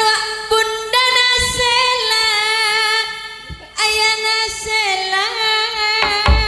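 A Javanese sinden's voice singing a phrase of long held notes with a wavering vibrato, starting suddenly from quiet. A couple of low thumps come in about a second and a half in and again near the end.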